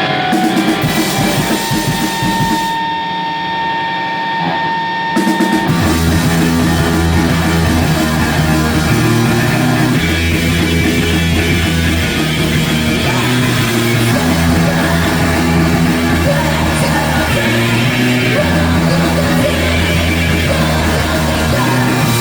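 Live heavy rock band playing loud through a venue PA: a sparse opening with a held high tone, then about five seconds in the full band comes in with drum kit and a low distorted guitar riff.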